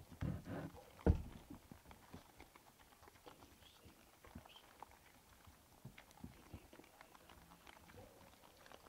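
Feral hogs feeding and rooting at a bait site: faint scattered clicks, crunches and hoof steps. One sharp knock about a second in is the loudest sound.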